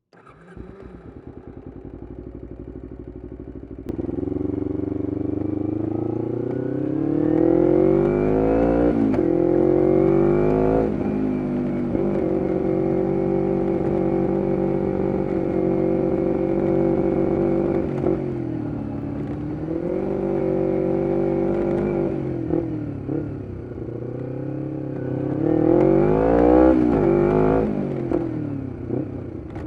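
2011 Kawasaki Ninja 250R SE's parallel-twin engine through a full Graves race exhaust, pulling away and revving up through the gears with a drop in pitch at each upshift, then running at steady revs. Later it eases off and revs up hard again near the end.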